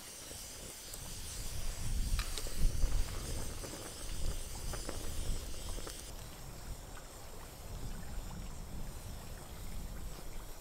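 Wood fire crackling and hissing in a small portable stove, with a few sharp crackles, over a low, uneven rumble of wind on the microphone. The hiss drops away about six seconds in.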